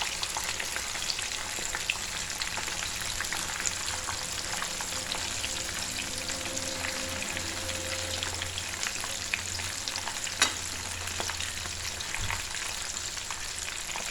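Batter-coated chicken pieces deep-frying in hot sunflower oil: a steady sizzle full of small crackles and pops. One sharper click about ten and a half seconds in.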